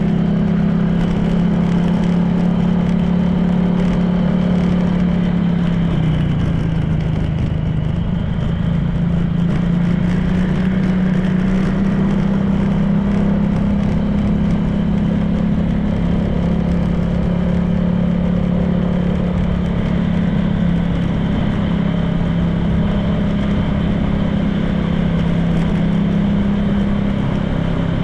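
Honda PCX 160 scooter's single-cylinder engine running at a steady cruise, with wind and road noise. The engine note dips briefly about six seconds in, then holds steady again.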